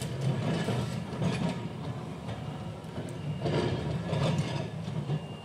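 Melbourne tram No. 670 running away along the track: a steady low rumble from its wheels and running gear, with bursts of clatter from the wheels about three and a half to four and a half seconds in.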